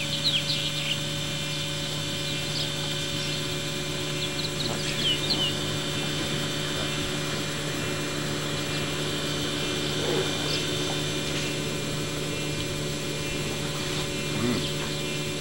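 A steady low hum made of several held tones, with short high bird chirps in the first second and again around five seconds in.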